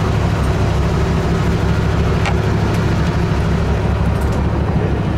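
Fishing boat's inboard engine running steadily: a low, even drone.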